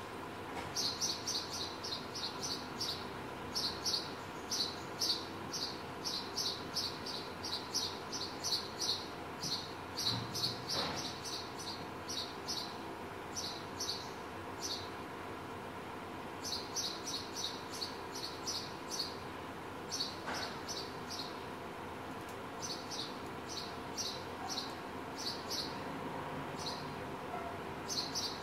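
House sparrow chirping: runs of short, high chirps, several a second, in bouts broken by brief pauses, over a steady faint hum.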